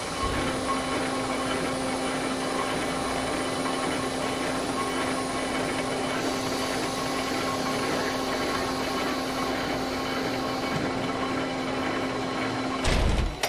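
C-5A Galaxy cargo bay doors closing: a steady motor whine over a mechanical rattle, ending near the end with a loud, deep thud.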